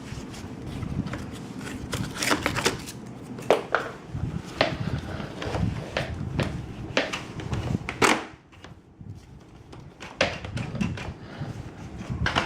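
Hard plastic parts of a Graco TurboBooster booster seat being handled, giving irregular clicks and knocks. A loud knock comes about eight seconds in, followed by a quieter stretch of about two seconds before the clicking resumes.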